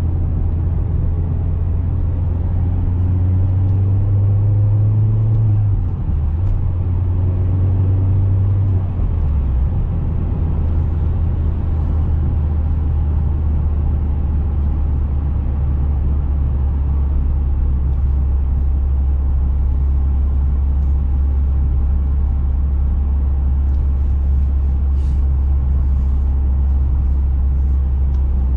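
Cabin drone of an Opel Astra OPC's 2.0-litre turbocharged four-cylinder engine with road noise. Twice in the first nine seconds or so the engine note climbs and then breaks off as the gear changes. After that it holds a steady low drone at cruise.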